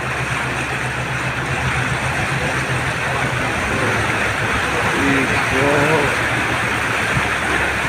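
A vehicle wading through floodwater: the engine hums low and steady under a continuous rush of water being pushed aside and splashing along the vehicle's side.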